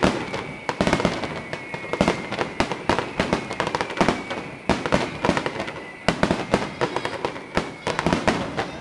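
Fireworks display: a dense, continuous run of bangs and crackles from bursting shells, several a second, with the bigger bangs standing out every second or so.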